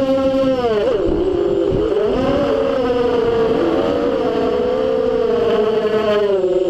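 FPV racing quadcopter's motors and propellers whining, heard through the onboard camera. The pitch drops sharply about a second in as the throttle comes off, then climbs back and wavers with the throttle, dipping again near the end.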